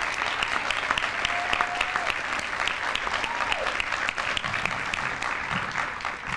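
Audience applauding in a large hall, the dense clapping of many hands, easing off near the end.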